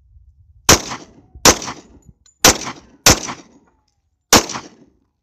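Five pistol shots at an uneven pace from a Taurus 24/7 G2 .45 ACP, each a sharp crack with a short echoing tail.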